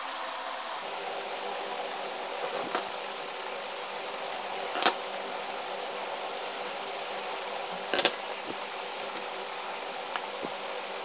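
Steady background hum and hiss with a few sharp clicks and taps from hands handling paper craft pieces. The loudest clicks come about five and eight seconds in.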